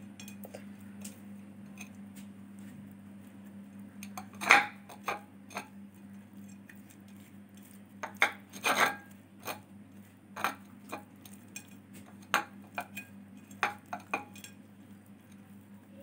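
Irregular taps and clinks of a fish and fingers knocking against a glass plate as spices are rubbed into the fish by hand, over a faint steady low hum.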